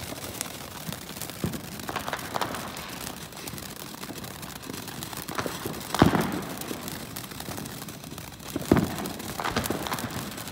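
Consumer ground fountain firework spraying sparks with a steady hiss and crackle, broken by scattered sharp pops. Two loud bangs stand out, one about six seconds in and another a few seconds later.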